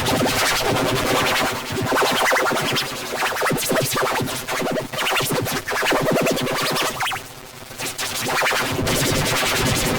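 Cartoon soundtrack run through heavy audio effects, turning it into a dense, buzzing electronic sound with rapid scratch-like stutters. It drops away briefly about seven seconds in, then comes back.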